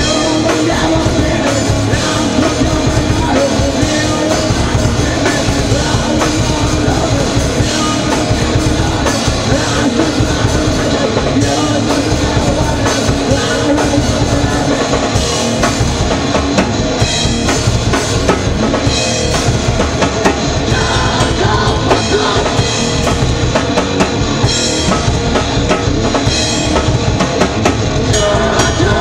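Live rock band playing loudly and without a break: a drum kit with cymbals under amplified electric guitar.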